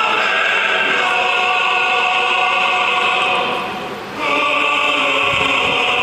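Choral music with long held voices. It dips briefly about four seconds in, then swells back.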